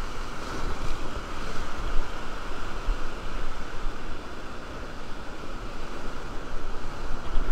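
Whitewater rapid rushing and churning around a raft, a continuous wash of water noise that swells and dips.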